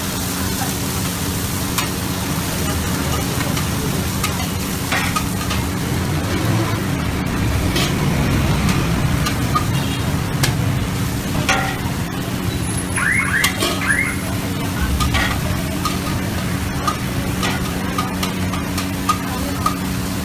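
Food sizzling as it is stir-fried in a wok over a gas burner, with a metal spatula and ladle scraping and clanking against the wok now and then. A steady low hum runs underneath.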